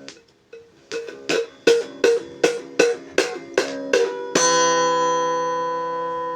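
Instrumental music on a plucked string instrument: a run of evenly spaced single notes, then a final chord about four seconds in that rings on and slowly fades.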